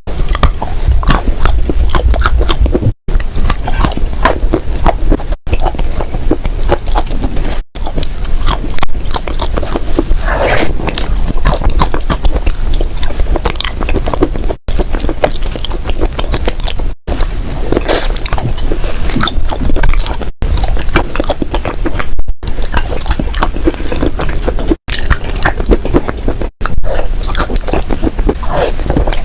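Dry clay crunching and crumbling in loud, dense crackles. Very short silent gaps break it every two to three seconds, as one clip cuts to the next.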